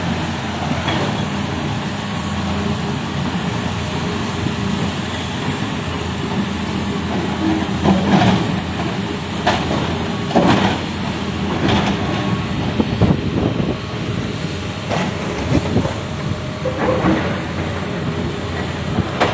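Excavator's diesel engine running steadily under load while it pushes granite blocks, with intermittent knocks and scrapes, several in quick succession in the second half.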